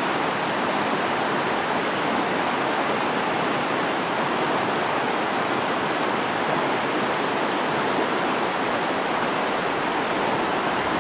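Fast-moving creek rushing over and around large boulders: a steady, unbroken rush of water.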